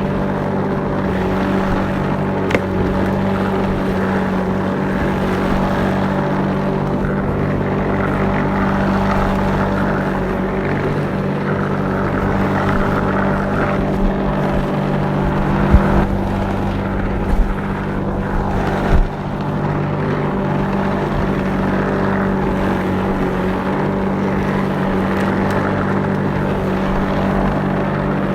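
Petrol lawnmower engine running steadily while mowing grass, a constant drone with a few brief thumps about two-thirds of the way through.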